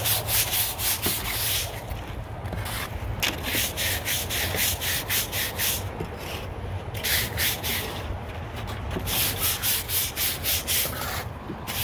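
Stiff-bristled brush scrubbing back and forth across freshly laid concrete block, sweeping off leftover lumps of mortar. It goes in quick bouts of about four strokes a second, with short pauses between bouts.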